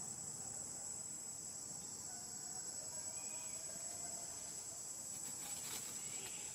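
Steady, high-pitched drone of insects, with a brief cluster of faint clicks about five and a half seconds in.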